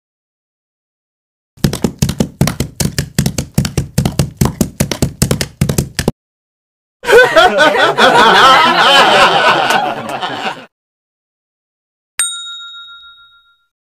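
A quick run of sharp knocks, about four or five a second, for roughly four seconds. Then a dense warbling sound for about three and a half seconds, and near the end a single bright ding that rings out.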